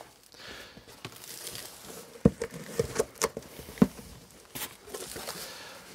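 Cardboard shipping box being opened by hand: flaps scraping and rustling, with a few sharp knocks from about two seconds in.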